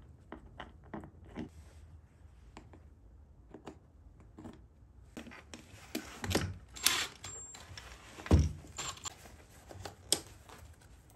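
Hand-assembly handling noise as parts of a homemade bikepacking tail bag are fitted together: scattered light clicks and taps, then busier rustling and knocking with a sharp knock and, a moment later, a heavier dull thump.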